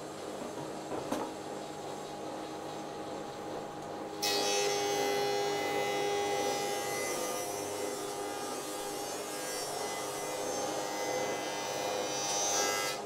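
Rikon 25-010H jointer-planer running in thickness-planing mode. The cutterhead spins unloaded with a steady hum for about four seconds. Then a board is fed in and the knives bite, giving a sudden, much louder, high-pitched planing sound that holds steady and cuts off abruptly at the end as the board clears.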